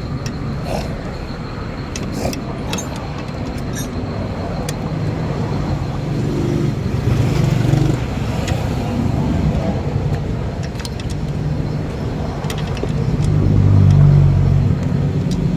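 A car engine running, with its sound swelling twice, at about seven seconds and again near the end; a few sharp clicks come early on.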